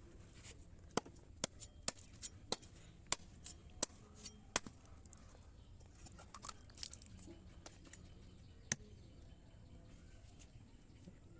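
Handmade spring-steel cleaver chopping: about ten quick, sharp chops over some four seconds, then a single chop a few seconds later.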